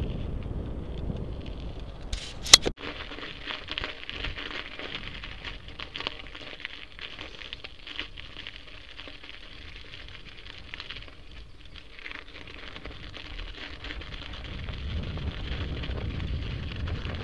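Cannondale bicycle's tyres crunching and crackling over gravel, ice and crusted snow, a dense run of small ticks through the middle, with wind rumbling on the bike-mounted microphone at the start and again near the end. A single sharp click about two and a half seconds in is the loudest sound.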